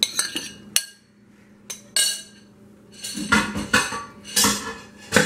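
A few sharp clinks of a bowl against a stainless steel pan in the first second. From about three seconds in, kitchen tongs clatter against the pan in quick repeated strikes while tossing spaghetti.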